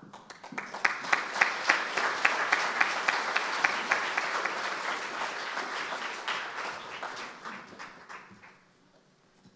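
Audience applauding, with a few loud single claps standing out. It swells within the first second and dies away about eight seconds in.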